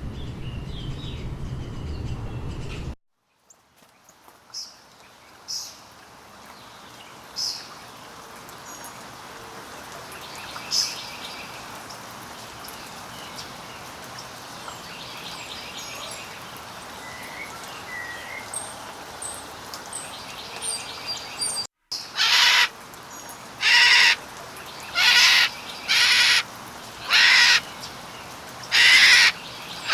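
Bird calls: scattered short chirps and trills at first, then in the last third a loud, harsh call repeated about once a second.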